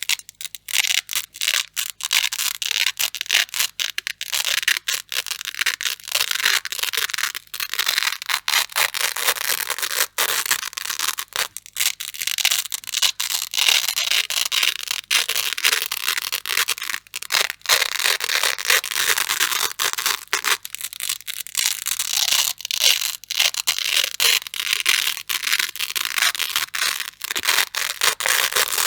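Grey hook-and-loop (Velcro) strips being ripped apart over and over: a crunchy crackling tear that goes on with only brief breaks.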